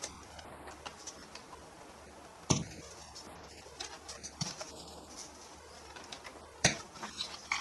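Hard plastic clicks and small rattles from toy guns being handled, with two sharper clicks about two and a half seconds in and near the end.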